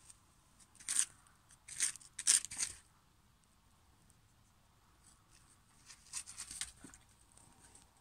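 Labrador retriever sniffing in quick, breathy bursts at a hedgehog rolled into a ball, in two spells: from about a second in, and again around six seconds.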